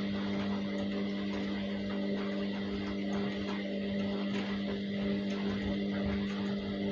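Washing machine running with a steady motor hum.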